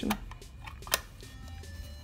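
Soft background music with held notes, and one sharp click about a second in as the CETME rifle's trigger group is worked up against its receiver.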